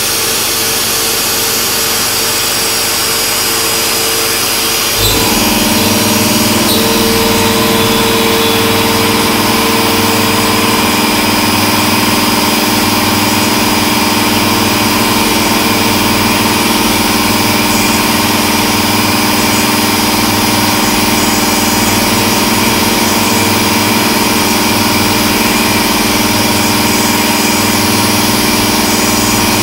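1995 Haas VF-3 CNC vertical mill's end mill cutting an aluminium soft-jaw block, a steady machining whine over a hiss. About five seconds in there is a knock and the sound steps up louder with a new, steadier pitch, and it then holds.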